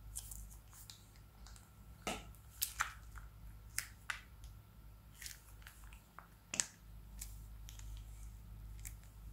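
Slime being squeezed from a plastic piping bag onto a layer of slime in a dish: small irregular pops and clicks, a few of them louder, the loudest past the middle.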